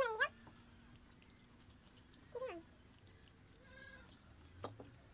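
A cat meowing three times: a loud call right at the start, a falling meow about two and a half seconds in, and a short steadier one near four seconds. A couple of light clicks near the end.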